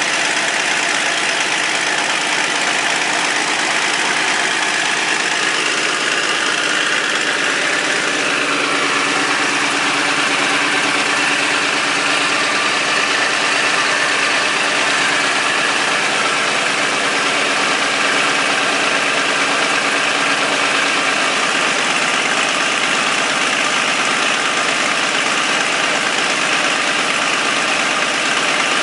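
Caterpillar D13000 diesel engine running steadily while belted to a sawmill. Its tone shifts about eight seconds in.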